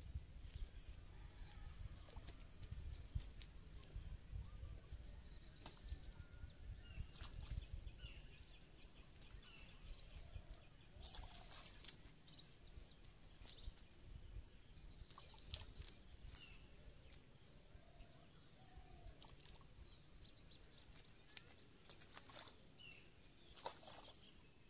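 Quiet outdoor sound of a nylon cast net being gathered up by hand in the grass, as scattered soft rustles and ticks, with short high bird chirps here and there over a low wind rumble.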